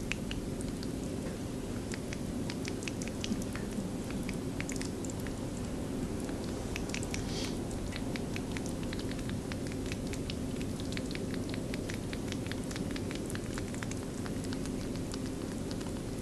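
Pet rabbit lapping and licking applesauce from a paper plate: a fast, irregular run of small wet clicks, several a second, over a steady low hum.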